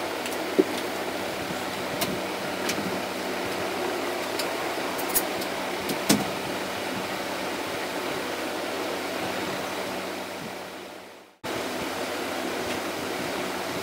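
Steady background hiss with a low hum, broken by a few light clicks. The sound fades away and cuts abruptly back in about eleven seconds in.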